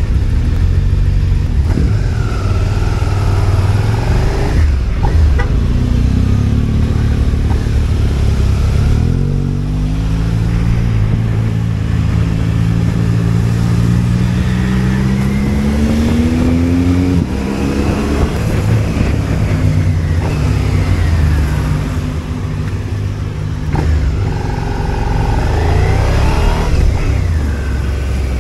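Motorcycle engine repeatedly accelerating and easing off. Midway its pitch climbs steadily for several seconds, then drops sharply.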